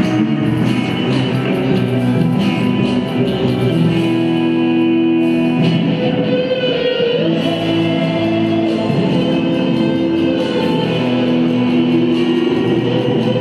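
Music playing steadily with held notes and plucked-string, guitar-like sounds: the accompaniment music for a rhythmic gymnastics clubs routine.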